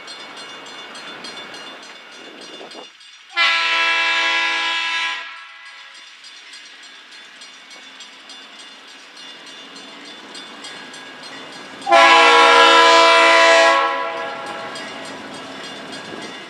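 Freight locomotive air horn sounding two long blasts several seconds apart, over the steady noise of the train rolling on the rails.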